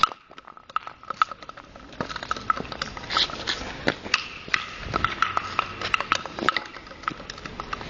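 Footsteps on stone paving: irregular sharp clicks and knocks, several a second. Quieter for the first second or two, then busier.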